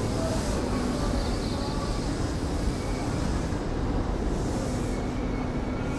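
JNR Class EF65 electric locomotive standing at a station platform: a steady low rumble with a faint constant hum.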